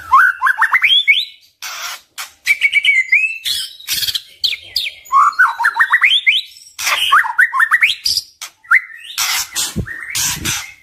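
White-rumped shama (murai batu) singing: quick runs of rising whistled notes broken up by short, harsh, scratchy notes.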